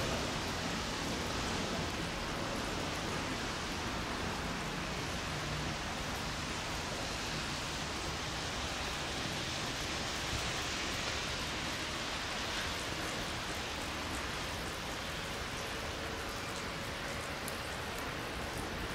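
Steady hiss of light rain falling, an even wash of noise with no distinct events.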